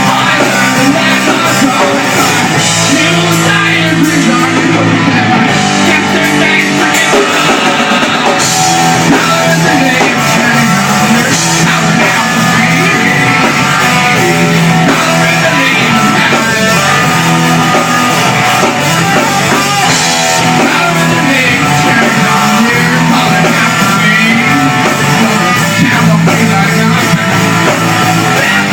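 Live rock band playing loud and without a break: guitars over a drum kit.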